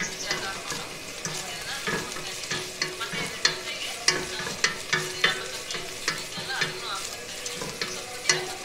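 Wooden spatula stirring onions and tomato in a metal pan, scraping and knocking against the pan a few times a second over a steady hiss of the cooking.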